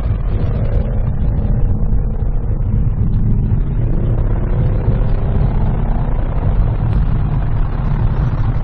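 2019 Ford Mustang Bullitt's 5.0-litre V8 running steadily while the car is driven, with a continuous low rumble of engine and road noise.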